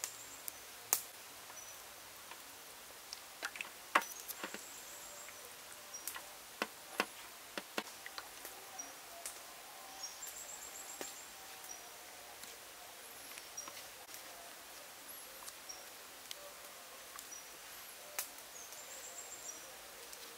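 Scattered soft taps and clicks of hands and chicken legs knocking against a metal bowl while the legs are pressed and turned in flour, a few sharper ones standing out. Short high bird trills and chirps recur in the background.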